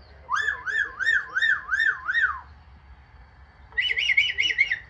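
Amazon parrot whistling: a run of six rising-and-falling whistled notes at about three a second, then after a short pause a faster, higher run of about six notes, like a car alarm.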